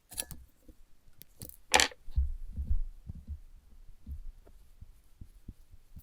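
Small parts and tools being handled on a workbench: scattered light clicks and knocks, a short metallic clatter about two seconds in, and a few low dull thumps.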